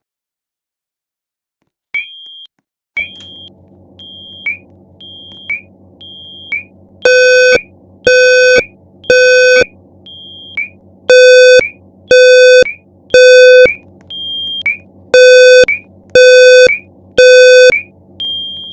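Fire alarm system sounding: loud horn tones in the three-pulse evacuation pattern, three blasts and a pause, repeated three times. Under them a short high beep sounds about once a second, starting about two seconds in, and a low hum comes on a second later.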